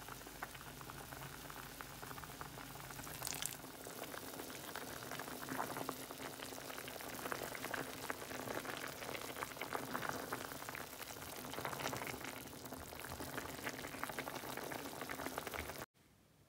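Thick coconut-milk chicken curry simmering in an enamelled cast-iron pot, its bubbles popping and crackling steadily. It cuts off abruptly near the end.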